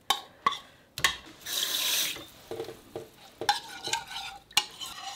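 A metal spoon scraping thick soaked chili-powder paste out of a bowl into a plastic blender cup. There are a few sharp taps of the spoon against the bowl and a longer scraping rasp about one and a half seconds in.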